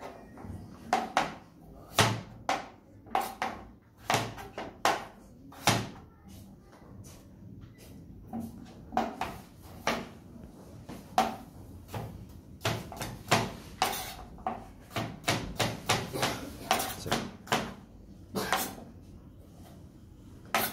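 Kitchen knife chopping down onto a plastic cutting board: sharp knocks at an uneven pace, sparse at first with a short lull, then coming in quick runs in the second half as the slices are diced.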